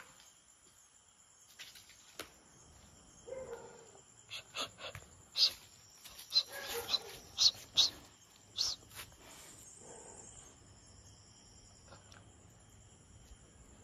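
Crickets chirring steadily in the night background. About halfway through comes a run of short, sharp noises as the street dogs nose through debris and sniff around.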